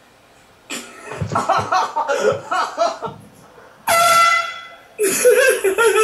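Voices shouting, then a single short air horn blast about four seconds in, followed by another loud sound near the end.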